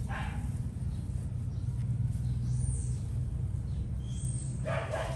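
A baby gibbon's short whimpering squeaks, a brief one at the start and a louder one near the end, over a steady low rumble.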